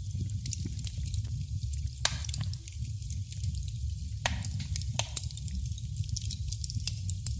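Wood fire crackling in a fireplace: irregular sharp pops and snaps over a steady low rumble, with a few louder snaps about two and four seconds in.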